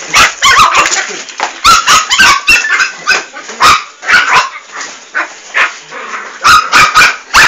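Fox terrier puppies yapping and yipping in quick, irregular flurries of short, high-pitched barks, with a brief lull about two-thirds of the way through.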